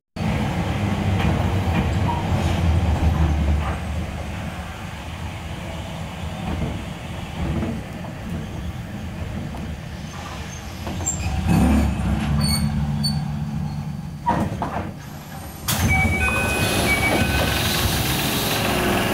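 Enoshima Electric Railway train heard from behind the driver's cab: a steady low rumble of motors and wheels on the rails, broken by a few knocks. Near the end it switches suddenly to a steady hiss with thin high tones.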